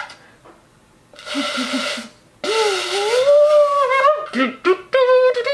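A shofar blown by an inexperienced player: first a breathy, airy puff with no clear note, then about halfway in the horn sounds a note that bends upward in pitch and holds, before breaking into short sputtering toots.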